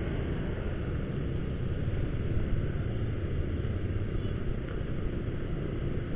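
Steady engine and road noise of a motorcycle ridden slowly through street traffic, heard from the bike itself.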